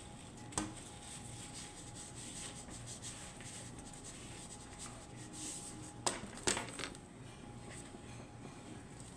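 Seasoning bottles handled over a bowl of eggs: one sharp click about half a second in and two more in quick succession about six seconds in, over a faint steady hum.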